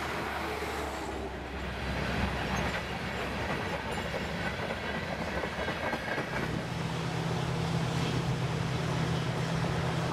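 A freight train of covered hopper cars rolls past, its wheels clacking and rumbling on the rails. After the last car goes by, about six and a half seconds in, a steady low hum takes over.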